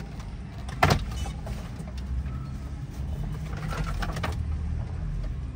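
Plastic dashboard trim and a car stereo being pulled out of a Toyota Vitz's dash: one sharp knock about a second in, then a few lighter clicks and rattles, over a steady low rumble.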